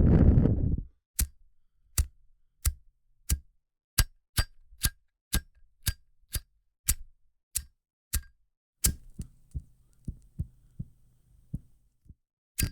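Zippo lighter's metal lid clicked open and shut over and over, sharp ringing clicks about two a second, after a loud rushing noise that stops about a second in. About nine seconds in the clicks turn softer and duller, with a faint hiss, and one loud click comes near the end.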